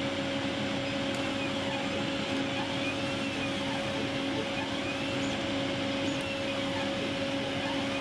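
Chinese CO2 laser cutter running a cutting job: a steady whir and hum from its fans and pump, with a faint motor whine that rises and falls over and over as the head moves around small circles. The cutter is working again after its tube and high-voltage power supply were replaced.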